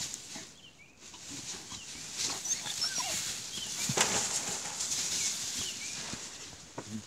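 Komondor puppies giving short high squeaks and whimpers while they and the adult dog shuffle through straw, with a sharp knock about four seconds in.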